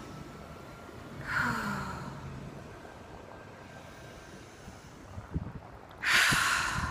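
A woman breathing out heavily: a sighing exhale about a second in, and a louder, longer breath near the end.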